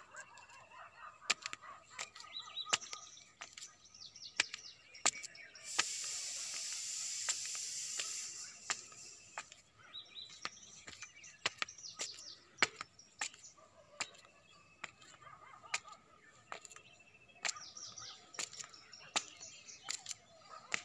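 Small birds chirping and twittering, with footsteps on hard steps at a walking pace, about one every 0.7 s. A loud hiss comes in for about three seconds, some six seconds in.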